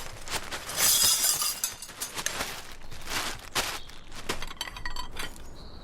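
Glass clinking and clattering in a string of sharp knocks, with a louder crash about a second in.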